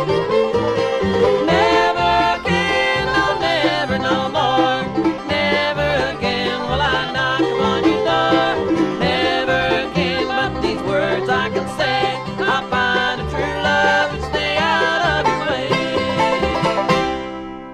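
Bluegrass string band playing an instrumental passage with banjo prominent among fiddle, mandolin, guitar and bass. The song ends near the end with a final chord ringing out.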